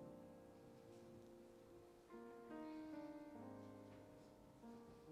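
Soft, slow keyboard chords: held notes that change every second or so, played quietly as background music.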